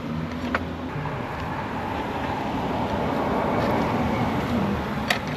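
A passing road vehicle: a steady rush that swells over a few seconds and then eases off, with a light click about half a second in and a few clicks near the end.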